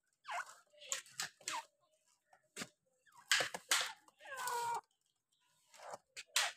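Caged grey francolins calling: a run of short, clipped calls, with one longer pitched call about four and a half seconds in.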